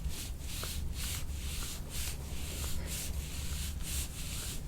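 Rhythmic rubbing over the skin of a patient's back during soft-tissue work, about two to three short hissy strokes a second, over a steady low hum.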